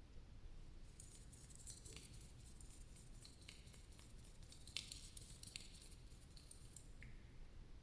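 Faint crackling with scattered sharp clicks, close to the microphone, starting about a second in and dying away near the end; the sharpest click comes about halfway through.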